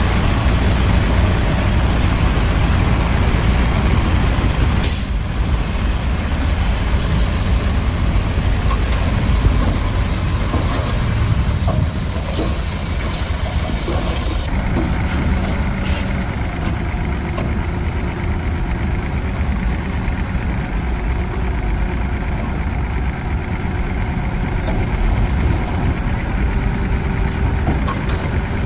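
Bulldozer diesel engines running under load, a steady heavy low rumble, with sudden shifts in the sound about five and fifteen seconds in.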